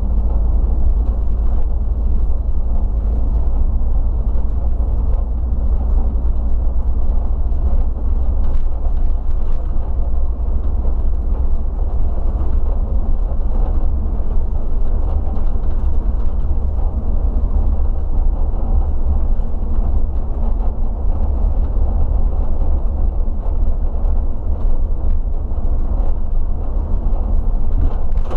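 Regional bus driving along, its engine and tyre noise heard from the cab as a steady low rumble.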